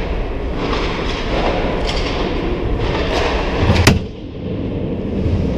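Ice hockey play: skates on the ice and the clatter of sticks, with one sharp crack about four seconds in, the loudest sound, as play comes in on the net.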